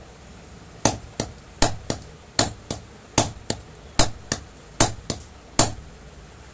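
A hammer striking a metal pipe held over a table fan's new shaft, driving the rotor back into place on it. About a dozen sharp blows come in pairs, a heavier strike then a lighter one, with the last blow near the end.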